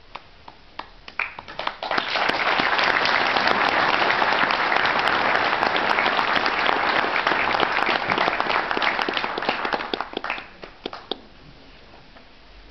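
Audience applauding: a few scattered claps, then full, dense applause for about eight seconds that dies away in a few last claps.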